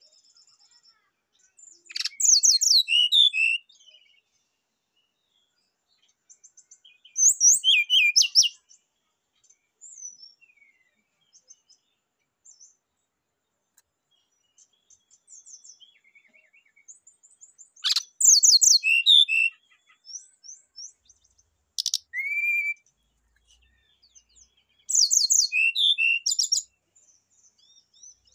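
Brown-chested jungle flycatcher singing: five short bursts of rapid, varied high notes, several seconds apart, with faint scattered chirps in the gaps.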